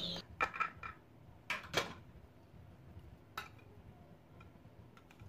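Metal knife and serving spatula knocking and scraping against a baking dish as a baked cauliflower cheese bake is cut and a piece lifted out: a few sharp clicks, most in the first two seconds and one more a little after three seconds.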